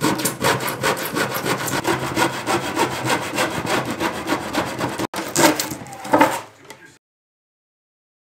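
Hand rip saw cutting through plywood in quick back-and-forth strokes, breaking off briefly about five seconds in and stopping about seven seconds in.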